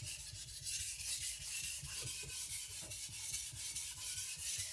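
Victorinox Chinese cleaver's steel blade being stroked back and forth on a whetstone, a steady scraping rasp in quick, even strokes as the edge bevel is ground.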